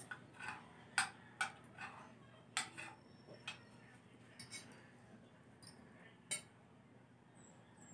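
Tableware handled during a meal: about a dozen short taps and clinks, bunched in the first few seconds, with the loudest about a second in and another just past six seconds.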